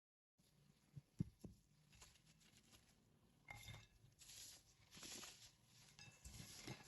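Faint handling noises: a few light clicks about a second in, then soft rustling scrapes, three times.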